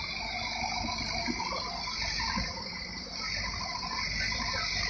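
Shantui SE90-9 excavator running as it works a load of soil over a truck and swings back: diesel engine running under a steady high whine, with loose clattering.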